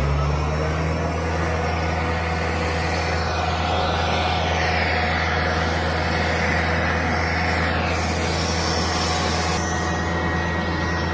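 Aircraft pushback tug's engine running with a steady low drone.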